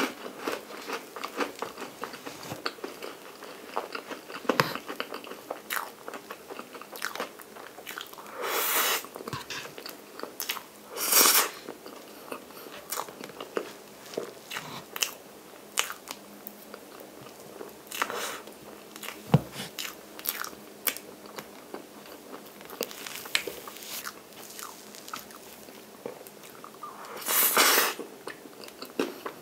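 Close-miked eating of soft chocolate chiffon cake with cream: wet chewing and lip smacks with many small sharp clicks, and three louder brief hissing bursts about 9, 11 and 27 seconds in.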